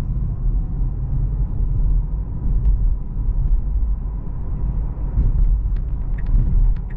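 Tesla Model 3 electric car driving, a steady low rumble of tyre and road noise, with faint light ticks starting about five seconds in.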